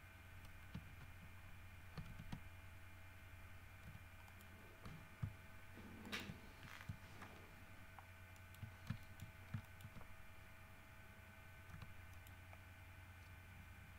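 Faint, scattered clicks of a computer keyboard and mouse over a steady low electrical hum, with a brief louder noise about six seconds in.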